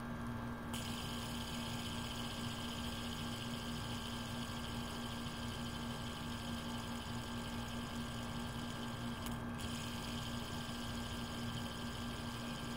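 A steady electrical-sounding hum at one unchanging pitch, with a hiss over it that comes in about a second in and drops out briefly later on.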